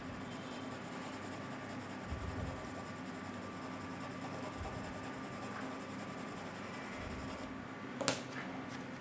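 6B graphite pencil shading back and forth on drawing paper, a steady rubbing that stops about seven and a half seconds in. A single sharp tap follows shortly after, the loudest moment.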